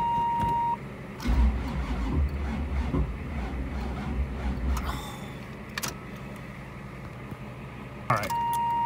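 A 1985 Camaro Z28's carbureted 383 stroker V8 cranks on the starter for about four seconds without catching, a cold start failing in deep cold with its chokes removed. A steady high warning tone stops just before the cranking and comes back near the end, after a click.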